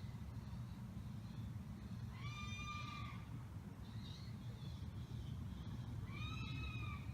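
Two drawn-out, high-pitched animal calls, each about a second long, that rise and then hold level: one about two seconds in, the other near the end, with a fainter call between them. The source is unknown; the uploader thinks it could be birds screeching. A steady low hum of background noise lies underneath.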